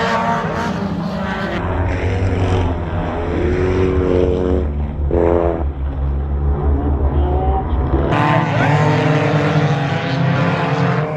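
Several Hornet-class race cars running flat out on a dirt oval, their small four-cylinder engines overlapping, pitches rising and falling as they race past and through the turns.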